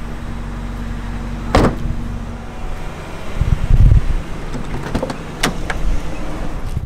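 An E39 BMW 5 Series driver's door being opened, with a sharp latch click about five and a half seconds in. Around it are knocks and low rumbles from a hand-held camera being carried along the car.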